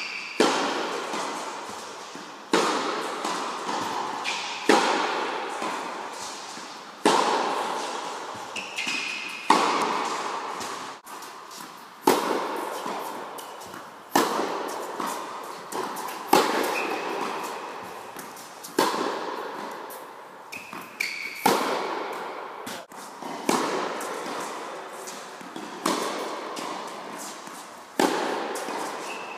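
Tennis racket striking the ball in a steady rally, a sharp pop about every two and a half seconds, each ringing out in a long echo off the walls of an indoor tennis hall.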